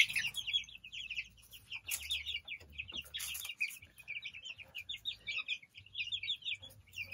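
A flock of young chicks peeping continuously, many short high chirps overlapping as they crowd together pecking at watermelon.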